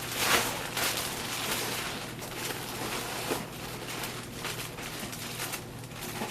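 Dry malted barley grains rustling and shifting as they are handled and poured, a continuous rustle that is loudest in the first half second.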